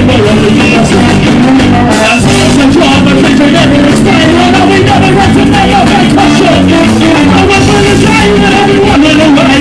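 Ska band playing loud and live: a trombone and trumpet over electric guitar, bass and drums.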